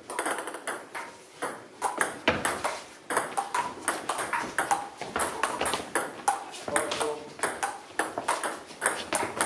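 Table tennis ball in a fast rally, clicking off the bats and the table about four times a second, each hit a short sharp tick with a brief ring.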